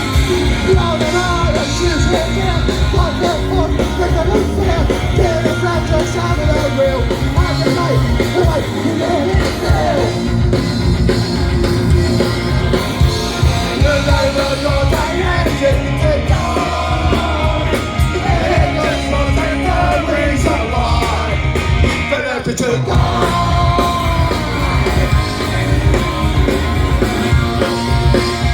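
Punk rock band playing live at full volume: distorted guitars, bass and fast drums under shouted vocals. The music thins briefly about three quarters of the way through, then comes back in full.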